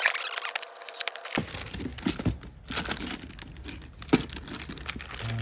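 Clear plastic bags of model kit parts crinkling and rustling as they are handled, with scattered sharp clicks and light knocks of the parts.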